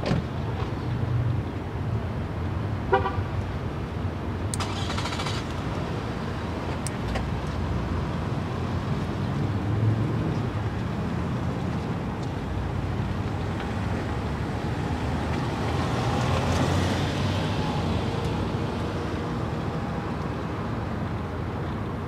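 Steady low outdoor background rumble. A short tooting note sounds about three seconds in, and a brief high crackle follows about four and a half seconds in.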